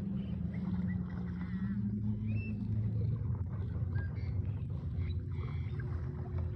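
Boat motor running steadily with a low hum; its pitch drops a little about two and a half seconds in, as if throttling down.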